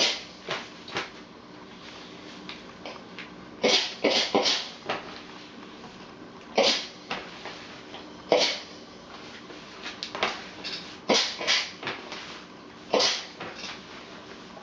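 Clothes iron being worked over paper under a pressing cloth on an ironing board: about a dozen short hissing swishes, some coming in quick runs of three or four.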